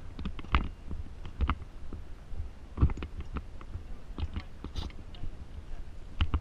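Irregular sharp clicks and knocks, a few per second and unevenly spaced, over a steady low rumble.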